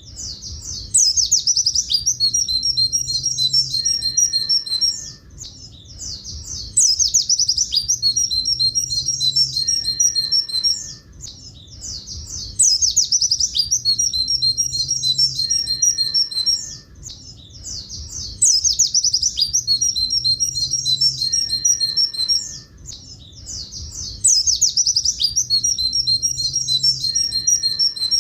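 Pleci buxtoni white-eye singing a long, rapid, high twittering "tulit tulit" song phrase. The phrase is repeated in near-identical form about every six seconds, with short quieter pauses between, as in a looped song-tutor (masteran) recording.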